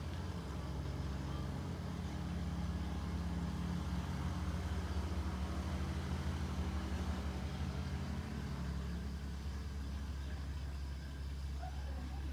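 Steady low motor hum, like a vehicle engine idling. Its higher tones drop away about nine seconds in, leaving a lower hum.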